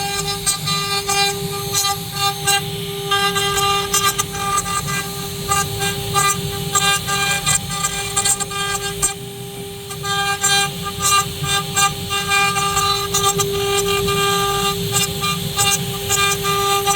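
Multi-spindle wood CNC router running: its spindles give a steady high whine, with irregular crackling chatter as the bits cut the wood.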